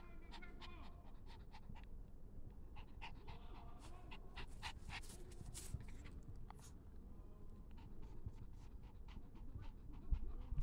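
Small Pomeranian dog panting softly, with faint scattered clicks and rustles throughout.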